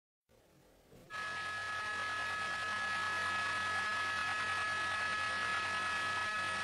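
Air traffic control radio static: a steady hissing rush with two steady high whistle tones, switching on abruptly about a second in, as a transmission opens.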